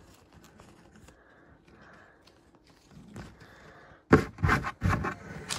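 Faint rustling and light clicks of things being handled, then about four seconds in a burst of loud scraping and rustling close to the microphone.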